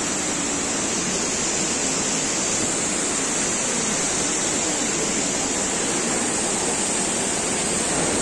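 Steady rush of river water flowing through a narrow limestone canyon, an even noise with no breaks.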